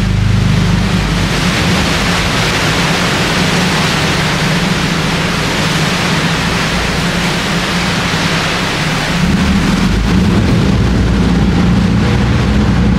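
Sightseeing boat under way: a steady rushing hiss of water along the hull over the low hum of its engine. The engine hum sinks under the water noise for most of the stretch, then comes up again about nine seconds in.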